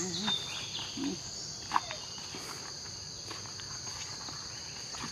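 Steady high-pitched chorus of forest insects. A few brief low sounds break in near the start, and one sharp short sound comes just before two seconds.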